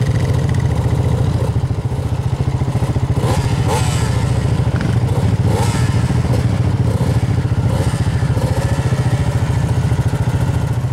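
Off-road motor engine running steadily with a fast, even pulse, a few brief rises in revs near the middle.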